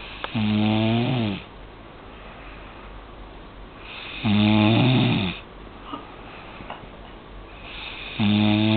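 A woman snoring in her sleep: three loud snores about four seconds apart, each about a second long, its pitch dropping at the end.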